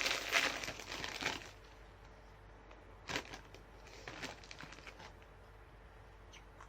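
Plastic snack wrapper crinkling as it is handled and opened, dying away about a second and a half in, followed by a few faint short rustles.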